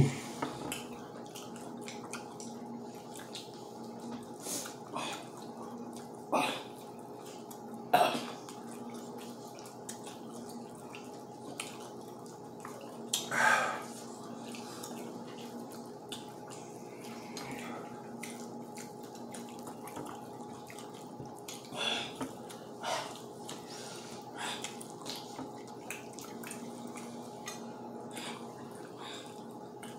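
People eating fried chicken by hand: scattered wet mouth smacks, clicks and chewing, the longest about halfway through, over a steady low hum.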